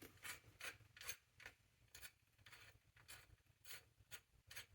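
Faint, quick scraping strokes, about three a second, from hand work on bicycle parts.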